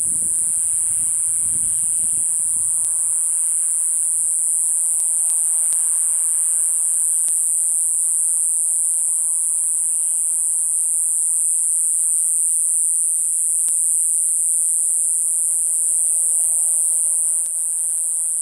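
Steady shrill chorus of night insects such as crickets, a high hiss that holds unbroken, with a faint low rumble in the first few seconds.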